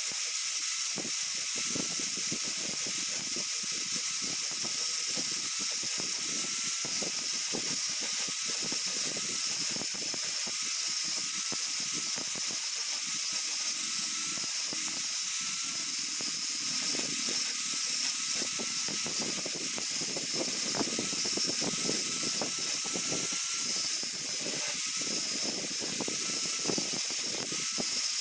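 Electric angle grinder with its disc grinding into the steel frame of a kuliglig hand tractor: a steady hiss of grinding with the motor's whine wavering slightly as the load changes.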